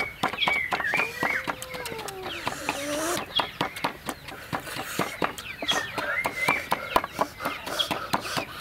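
Wooden pestle pounding red chillies in a small mortar: a steady run of sharp, irregular knocks. Bird calls with gliding pitch sound over the pounding.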